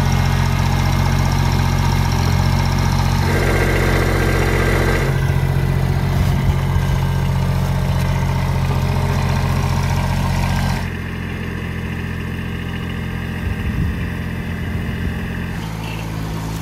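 Kubota compact tractor's diesel engine running steadily while towing. About eleven seconds in, the sound abruptly drops in level and changes tone.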